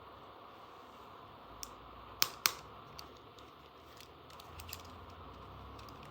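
Small plastic toy tool pieces being handled: a few light clicks and taps, with two sharp clicks close together about two seconds in.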